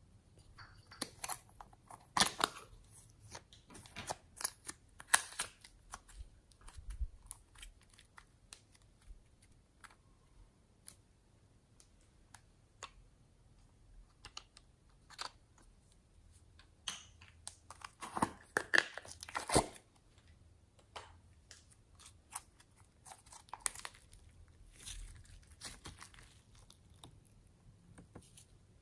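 Hands handling plastic slime containers and toys: scattered clicks with crinkling, tearing-like rustles, the loudest run of them about two-thirds of the way through.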